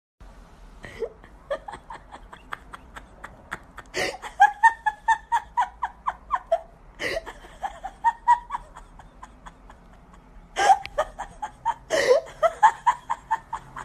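A person laughing in several bouts of quick, rhythmic pulses, each bout starting sharply, the first about four seconds in.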